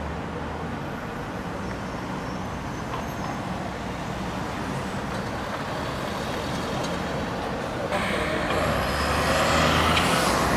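Double-decker buses running at a bus station, one pulling out across the stand. About eight seconds in, the sound changes abruptly to louder roadside traffic with a double-decker bus approaching.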